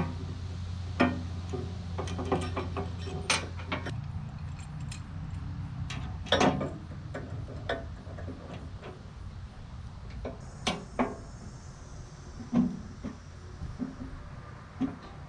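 Metal tools and clamps being handled and gathered up: scattered clicks, clanks and knocks, over a low hum that fades about four seconds in.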